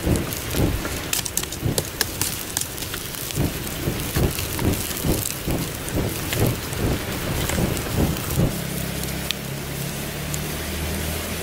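Stiff green leaves rustling and crackling as they are handled and folded, in quick repeated strokes. After about eight seconds the rustling stops and a steady low hum takes over.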